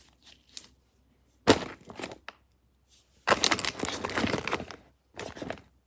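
Crinkling, crushing handling noises in three bursts, the middle one the longest, as something is squeezed or rustled close to the microphone.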